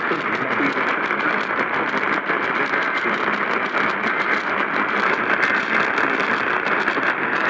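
Radio static: a loud, steady hiss with light crackle, and a voice faintly audible underneath it.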